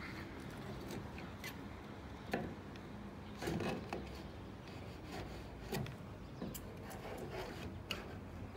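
Light scraping and scattered small clicks of hands and a knife working at a boiler flue pipe, trying to pull a fitted piece loose, with a few sharper scrapes or knocks about two and a half, three and a half and six seconds in.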